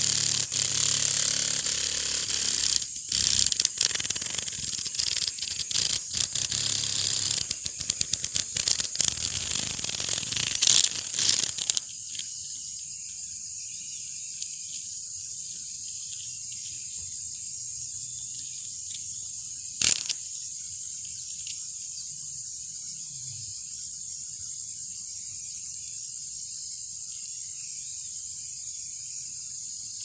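A female cicada held in the fingers fluttering and flicking its wings, a loud, uneven buzzing rattle that stops suddenly about twelve seconds in. A steady high-pitched insect drone runs underneath, with a single sharp click about twenty seconds in.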